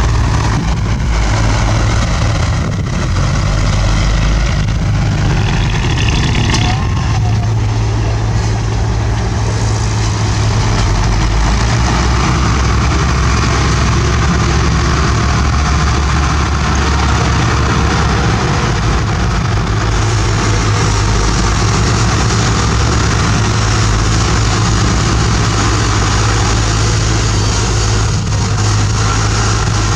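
Bulldozer's diesel engine running steadily, a loud low drone with broad mechanical noise over it.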